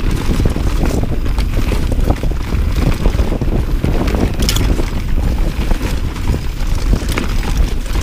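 Wind buffeting the microphone over mountain bike tyres running fast on a dirt trail, a steady low rumble with scattered clicks and rattles from the bike.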